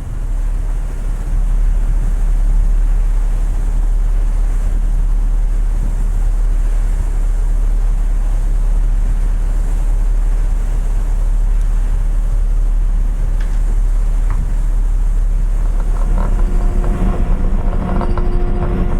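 Low rumble of a car ferry's engines with wind buffeting the microphone. About three-quarters of the way through, the sound changes to a steadier engine hum with a few fixed tones and light clinks.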